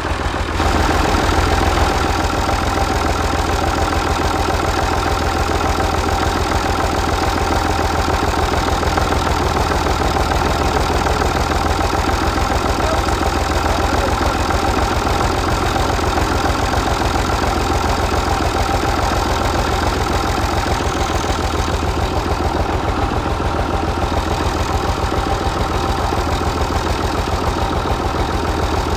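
Mini tractor's motor running steadily at an even, idle-like speed with a fast low pulsing, unbroken throughout.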